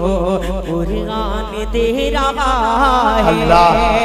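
A man's solo voice singing a naat, an Urdu devotional poem, into a handheld microphone: long melodic phrases with quick wavering turns and ornaments.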